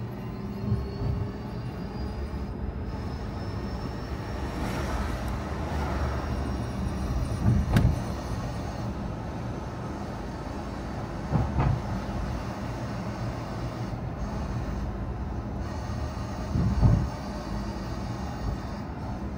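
Car driving along a road: steady engine and tyre rumble, with a whine that rises slowly in pitch over the first several seconds as it gathers speed. Four short low thumps are spread through it.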